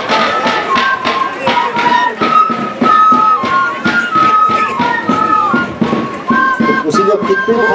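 Traditional Andean dance music: a wind-instrument melody of held notes stepping up and down, over a steady beat of drum strikes.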